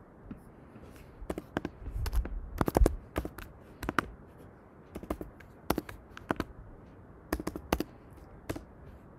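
Computer keyboard keys and mouse clicks tapping irregularly, a few at a time with short pauses, as numbers are typed into entry fields.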